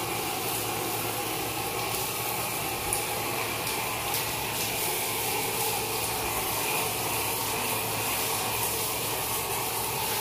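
Water running steadily and splashing as a bather rinses water over his face.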